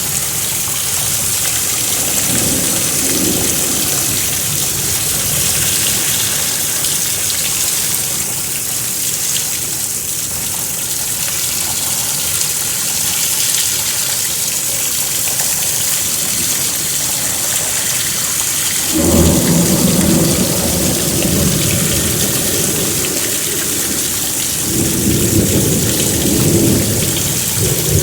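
Heavy rain falling with a steady hiss, and thunder rumbling low: a faint roll early on, then a louder clap about two-thirds of the way through and another rumble near the end.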